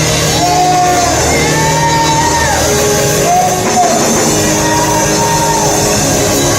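Live gospel worship music: a singer's voice holds long, arching notes over the band's steady sustained chords, loud and reverberant in a large hall.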